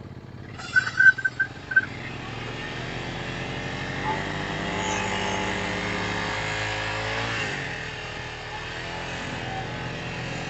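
ATV engine running, its pitch rising about four seconds in, holding for a few seconds, then dropping back. About a second in comes a quick run of short, loud high-pitched chirps.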